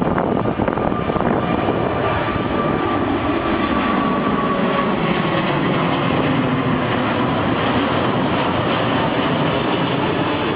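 Airbus A380's four jet engines at high thrust, a loud steady rushing noise with a faint whine that slides slightly lower in pitch a few seconds in.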